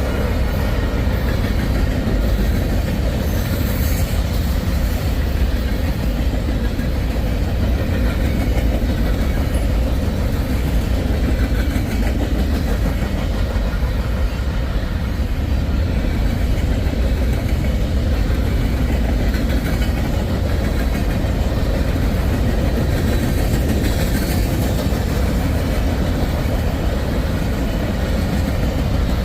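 Long CSX freight train rolling past: a steady, heavy rumble of freight-car wheels on the rails.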